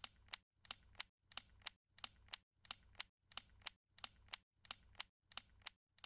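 Ticking sound effect of an animated logo intro: quiet, sharp clicks at an even pace, about three a second, each with a faint low thud beneath.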